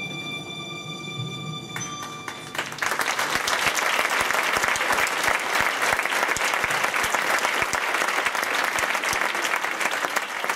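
Music with held notes fades out about two and a half seconds in, and an audience in an auditorium breaks into steady applause that continues.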